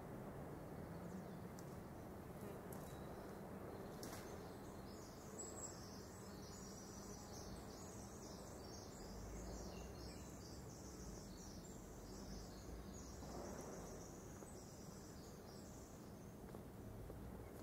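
Streetcar in motion heard from inside the car: a steady low rumble of it rolling along, with a faint high-pitched chittering that comes in about four seconds in and stops shortly before the end.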